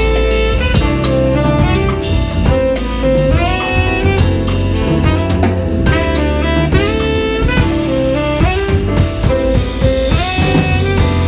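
Live jazz quartet playing: a tenor saxophone carries a busy melodic line over bass, piano and drum kit.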